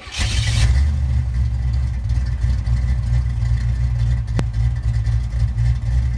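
A 1985 Buick LeSabre's engine catching just as it starts, then running steadily with a deep, low rumble. A single sharp click comes about four seconds in.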